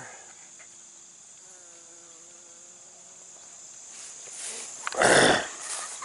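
Steady chirring of crickets and other insects, with a faint drawn-out low tone in the middle. A loud rough burst comes about five seconds in.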